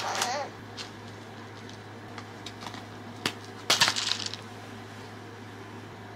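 Cardboard crisps canister being handled, with crisps rattling and crinkling inside: a short rustle at the start, a click a little after three seconds in, and a louder crinkly rattle just after, as the can is set down. A steady low hum runs underneath.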